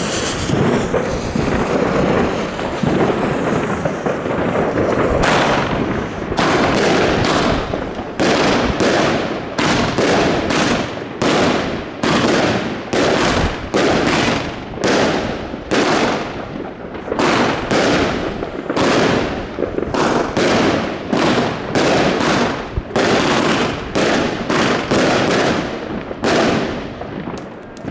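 Magnum WCKD SIX 'KA'A' consumer firework cake (20 shots from 25 mm tubes) going off. A few seconds of continuous hissing give way to a regular run of shots, about one a second, each a sharp report with a short decaying tail.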